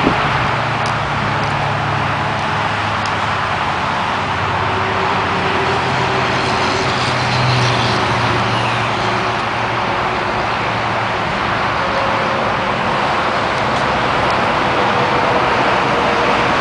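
Freeway traffic: a steady rush of tyre noise with a low engine hum underneath.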